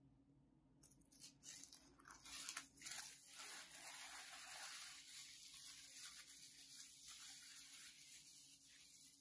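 A sheet of soft white paper being crumpled and scrunched in the hands: a faint crinkling rustle with small crackles, starting about a second in.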